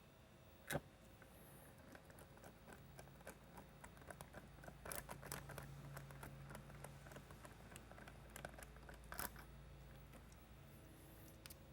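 Small Phillips head screws being handled and driven with a screwdriver to fix a strobe assembly to its mount board: faint clicks and scrapes, with a sharper click about a second in, a run of small clicks in the middle and another sharp click near the end.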